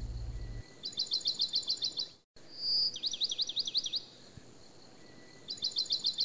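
Looped birdsong track: a short high whistle followed by a quick trill of about eight to ten chirps, the same phrase repeating roughly every four and a half seconds, with a brief gap of silence between repeats.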